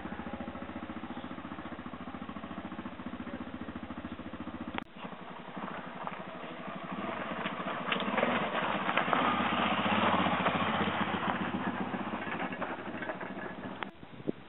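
Dirt bike engine idling steadily. After an abrupt cut about five seconds in, a dirt bike's engine is heard coming down a rocky descent, growing louder and then easing off near the end.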